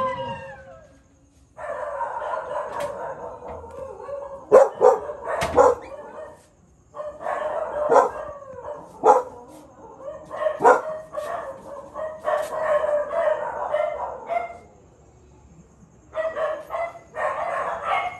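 Recorded wolf howling played through a loudspeaker, meant as a werewolf's howl: long wavering howls in three stretches, with about six sharp dog barks breaking in around the middle.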